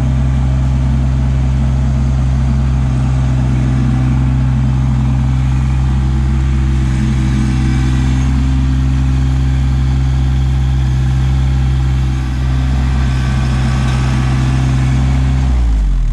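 Kubota LX2610 compact tractor's three-cylinder diesel engine running steadily at close range while the tractor drives and works its front grapple. Near the end the engine speed drops and its pitch falls.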